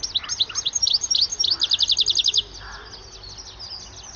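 European goldfinch singing: a quick series of high notes that speeds into a fast, even run of short falling notes, then drops to fainter notes about two and a half seconds in.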